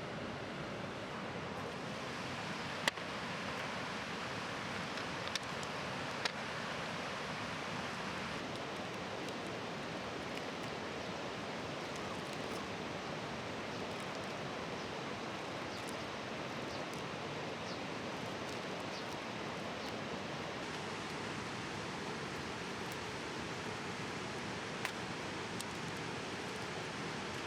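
Wood bonfire burning with a steady hiss and occasional sharp pops and crackles, the loudest about three seconds in.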